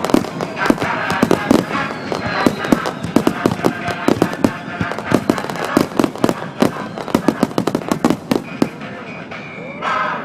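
Fireworks display: a rapid barrage of shell bursts, many sharp bangs a second in quick succession, thinning out near the end, picked up on a camera microphone that distorts the blasts. Music comes in at the very end.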